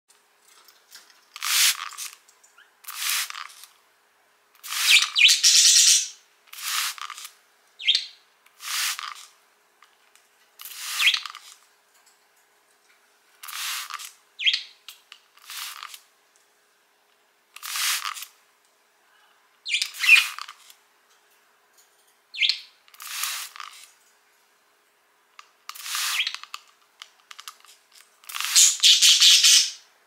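Handheld spray bottle spritzing water mist: short hisses every second or two, with a couple of longer runs of quick pumps. A few brief budgie chirps come in between.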